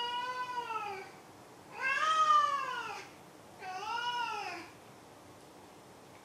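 Domestic cat meowing three times, each call about a second long and rising then falling in pitch; the middle meow is the loudest.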